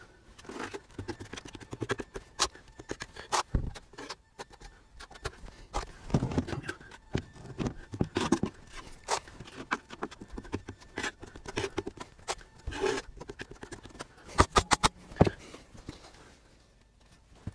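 Drywall knife spreading joint compound on a wall and scraping against a mud pan: irregular scrapes and sharp clicks, a quick run of clicks near the end, then it goes quiet.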